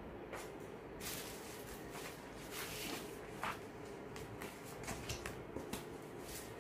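A large paper instruction booklet being folded shut and handled on a table, its pages rustling and flapping in irregular swishes.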